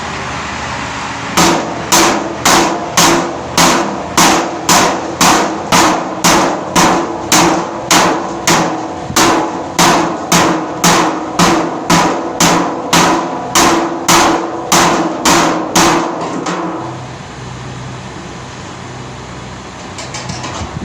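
A hammer striking metal in a steady rhythm, about two blows a second, some thirty in all, each leaving a short metallic ring, stopping about three quarters of the way through. A steady machine-like noise runs underneath.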